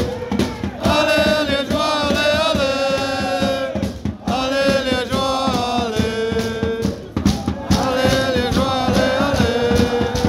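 A crowd of football supporters singing a chant together, in long sung lines with short breaks about four seconds in and near seven seconds.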